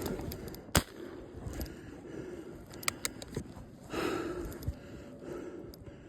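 A single sharp crack about a second in: a .22 pellet pistol firing. A few fainter clicks follow around three seconds in.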